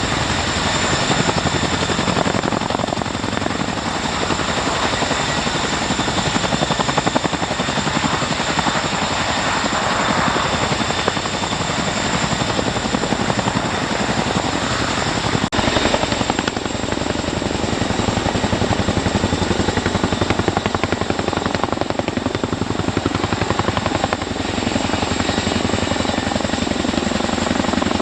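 Boeing CH-47 Chinook tandem-rotor helicopter running close by: rapid, even rotor chop over a steady high turbine whine.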